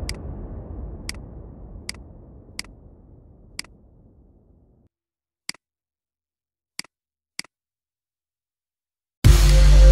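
Computer mouse clicks, single sharp clicks at uneven intervals, about eight in all, while background electronic music fades out over the first few seconds. Loud electronic music cuts back in suddenly near the end.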